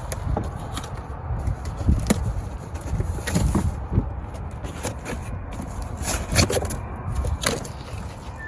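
A box and its packing being handled while a heater is unpacked: irregular scrapes, crackles and knocks.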